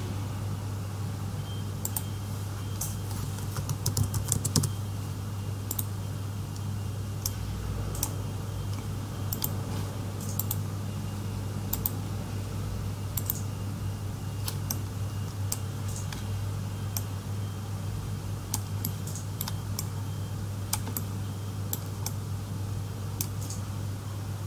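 Irregular clicking of a computer mouse and keyboard being worked, with a few quicker clicks about four seconds in, over a steady low hum.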